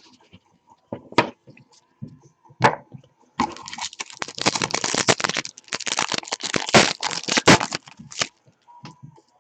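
A few light clicks, then several seconds of dense crackling as the wrapper of a trading-card pack is torn open and crumpled.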